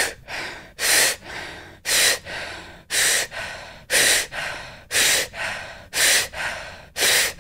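A woman's rapid rhythmic breathing in a breath-of-fire exercise, about one cycle a second: each cycle is a sharp, forceful breath followed by a softer, trailing one, the inhale drawn in explosively and the exhale left to fall out.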